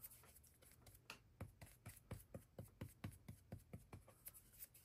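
Faint, quick strokes of a paintbrush laying oil paint onto a small board: short scratchy taps at about four a second.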